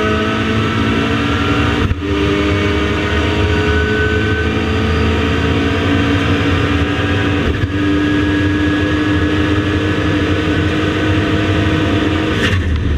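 KTM X-Bow GT4 race car's turbocharged four-cylinder engine under hard acceleration, heard from inside the open cockpit. The note climbs steadily and breaks briefly for upshifts about two seconds in and again around eight seconds, with another break near the end.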